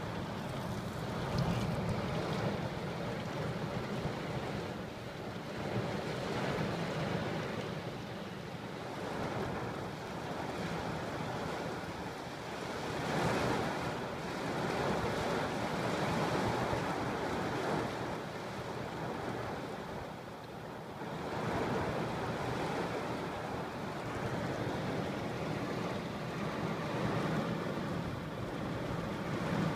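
Torrential thunderstorm rain pouring hard on the car, heard from inside the cabin, as a steady noise that swells and eases a few times.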